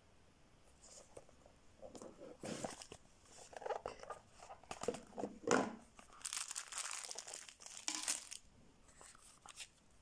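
Cardboard box and paper packaging being opened and handled by hand: irregular rustling, scraping and crinkling, loudest in a long rustle about six to eight seconds in.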